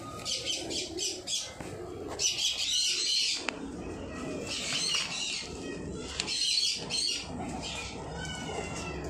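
Pigeons in a cage: several short bursts of wing flapping and feather rustling, with a few short high chirps near the end.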